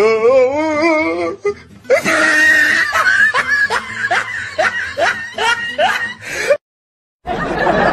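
Laughing sound effects played back to back. First a warbling, wavering laugh, then a laugh of short rising "ha" bursts about two a second. After a brief cut to silence near the end, a denser, noisier laugh begins.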